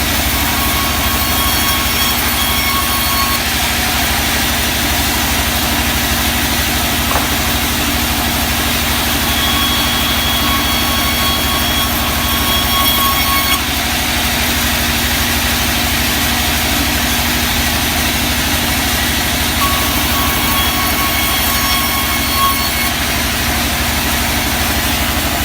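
Sawmill machinery running steadily, with an engine-like drone. A thin high whine comes in for a few seconds three times: at the start, around the middle, and near the end.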